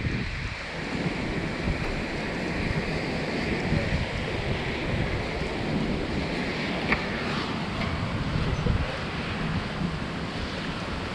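Wind buffeting the microphone outdoors, a steady rushing noise with uneven low gusts, and a single sharp click about seven seconds in.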